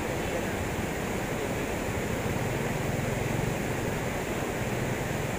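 Muddy river floodwater rushing across a road, a steady rushing noise.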